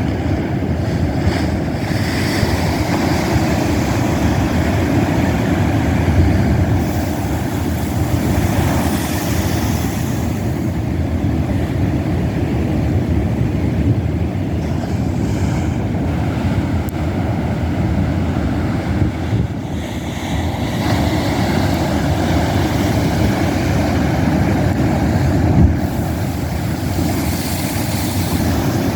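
Pacific Ocean surf at king tide breaking against cliffs: a continuous deep rumble of waves, with a hissing wash of water swelling up twice, about a third of the way in and near the end. Wind on the microphone adds to the low rumble.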